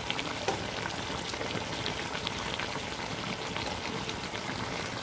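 Chicken and vegetables frying and bubbling in a pot: a steady crackling sizzle with many small pops.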